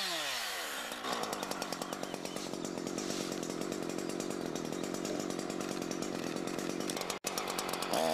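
Husqvarna two-stroke chainsaw dropping from full throttle to idle in the first second as a cut finishes through the trunk, then idling with an uneven pulse for several seconds. It starts to rev up again at the very end.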